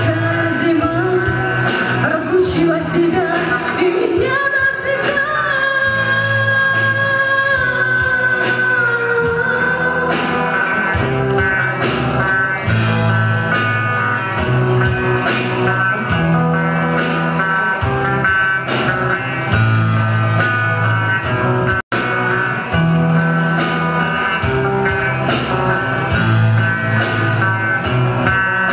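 Rock band playing with singing: a sung melody over guitar, bass and a steady drum beat, with long held notes early on. The sound cuts out for an instant about two-thirds of the way through.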